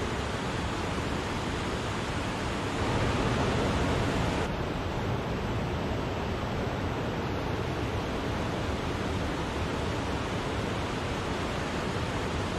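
Waterfall: a steady, even rush of falling water, a little louder for a moment about three seconds in.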